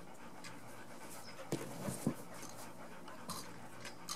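A dog panting steadily, with a couple of low thumps about halfway through.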